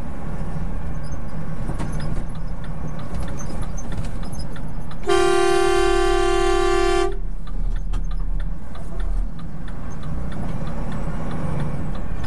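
A vehicle horn sounds once, one steady blast of about two seconds starting about five seconds in, over the steady low rumble of the vehicle's engine heard from inside the cab.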